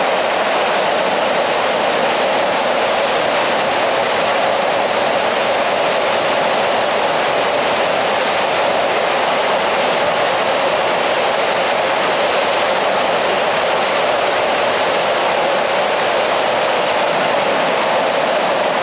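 Steady rush of falling water inside a limestone cave, a dense unbroken hiss.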